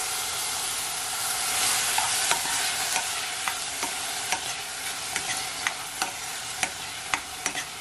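Frozen mixed vegetables sizzling in olive oil in a saucepan. From about two seconds in, a plastic spoon stirs them, clicking against the pot now and then.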